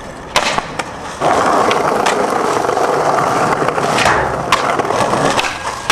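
Skateboard: two sharp clacks of the board in the first second, then a steady rolling rumble of the wheels over concrete from just over a second in, with a few more clacks, easing off near the end.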